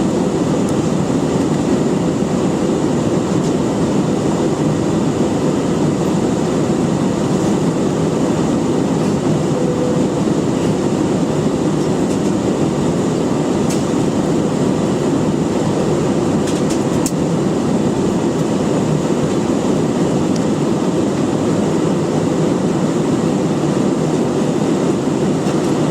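Steady roar of engine and airflow noise inside an airliner cabin a few minutes after takeoff.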